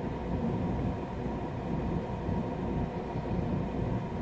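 Steady low hum of a parked car running, heard from inside the cabin.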